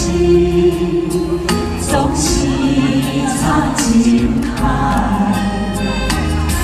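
A Taiwanese Hokkien pop ballad performed live: a singing voice over backing music with a steady low accompaniment.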